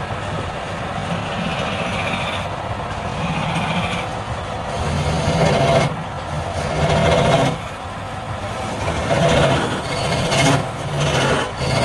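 Wood lathe running with a steady motor hum, while a turning tool cuts the spinning wood in rougher, louder passes that swell and fade, mostly in the second half.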